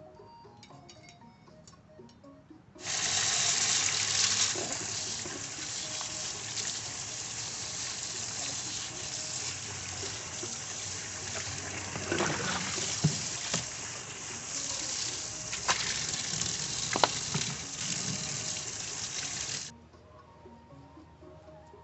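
Kitchen tap turned on a few seconds in, with water running steadily into the sink and a few sharp knocks and splashes, then shut off abruptly near the end.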